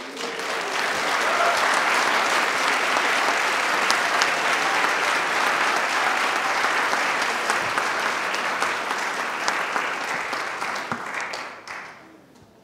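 Audience applauding: the clapping builds within the first second, holds steady, and dies away near the end.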